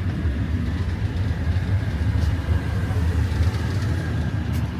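Steady low rumble in an antique steam train's passenger carriage, the train standing just before it pulls away.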